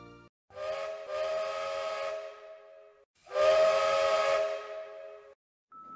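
Steam locomotive whistle blowing several notes at once, sounded twice. The first is a short toot running straight into a longer blast. The second is a louder long blast that fades off after about two seconds.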